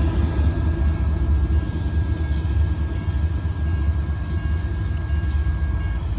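Steady low rumble of BNSF GE diesel-electric freight locomotives running as they approach, leading a loaded coal train.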